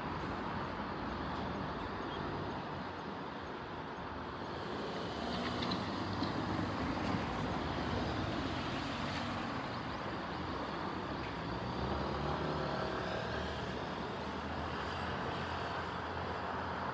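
Steady rumble of a passing vehicle, swelling briefly about five seconds in.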